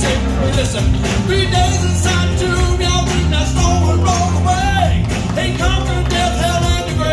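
A male gospel singer sings lead into a handheld microphone over an instrumental accompaniment with a strong bass.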